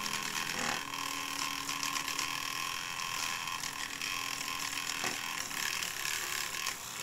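Small handheld rotary tool running steadily while held against the workpiece, with two brief knocks, one near the start and one about five seconds in.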